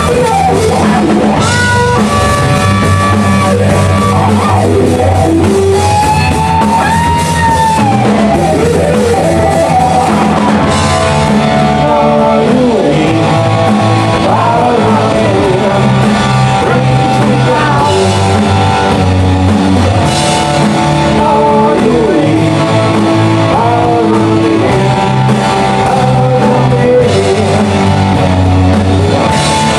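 A live rock band playing loud: electric guitars, bass and a drum kit, with a sung vocal over them.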